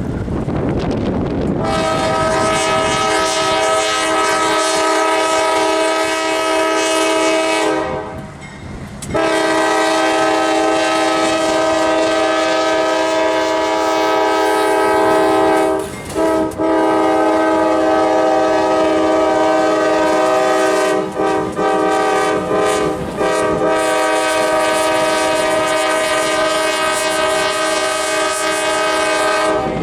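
Nathan K5LA five-chime air horn on CSX AC44CW locomotive 293 sounding a long horn show. A steady chord starts about two seconds in and holds for some six seconds. After a short break it comes back and holds for about twenty more seconds, with a couple of brief breaks in the middle.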